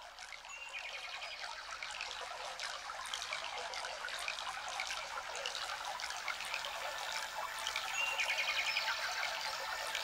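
Water trickling, with small birds chirping over it and gradually getting louder. A quick run of repeated chirps comes about a second in and again near the end.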